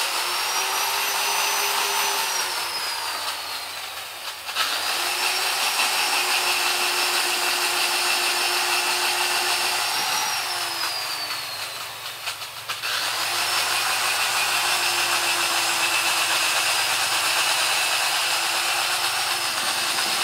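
Hand-held electric drill boring into massaranduba hardwood planks, running in three long stretches. The motor's pitch sags near the end of the first two runs as it slows under load, then picks up again after a short pause.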